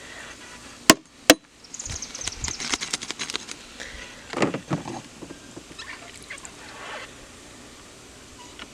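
Pool pump's strainer basket being cleaned of trapped debris: two sharp knocks about a second in, then a few seconds of irregular clattering and scraping, with a louder swish about four and a half seconds in.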